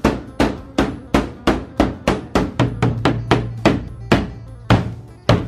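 Beduk, a large hanging mosque drum with a skin head, beaten with a wooden stick in a fast, even run of about three strokes a second. The strokes space out near the end. It is the drum signal that announces prayer time before the azan.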